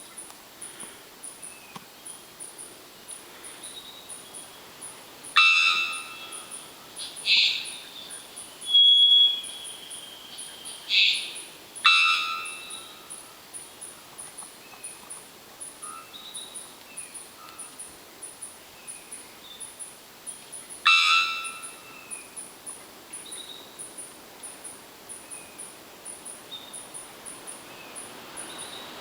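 Three-wattled bellbird calling: about six loud, abrupt calls spread through, most a sharp note with stacked overtones, one a held whistle of about a second. A high, evenly repeating pulsing runs underneath throughout, with faint short calls here and there.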